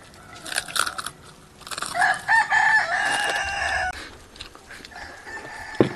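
A rooster crowing once: a loud call of about two seconds, starting a couple of seconds in, that steps up and then holds.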